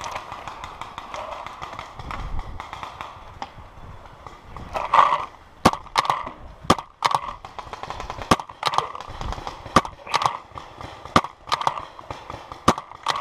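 Paintball markers firing: an uneven, quick run of sharp pops starting about five seconds in, after a few seconds of quieter shuffling and handling noise.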